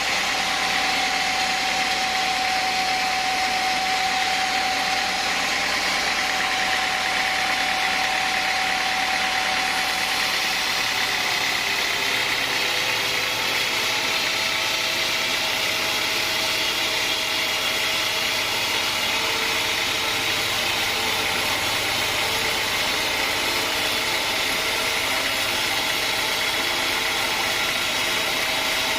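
Sawmill saw running steadily through teak, its pitch dropping slightly about eleven seconds in.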